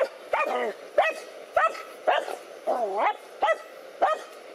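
Dogs barking steadily at a snake they are attacking, about seven sharp barks spaced roughly half a second apart, with one longer, wavering bark a little past halfway.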